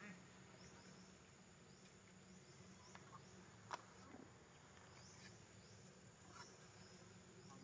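Near silence: faint outdoor forest ambience with short, high, falling chirps repeating roughly once a second over a low steady hum, and a single faint click just past halfway.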